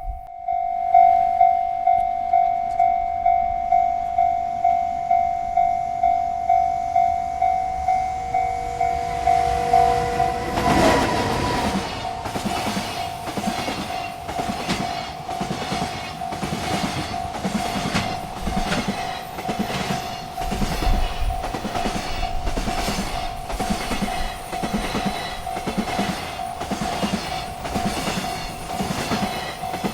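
Railroad crossing bell ringing steadily, about two strokes a second. About eleven seconds in, a freight train reaches the crossing and rolls through with a rhythmic clatter of wheels over the rail joints, while the bell keeps ringing underneath.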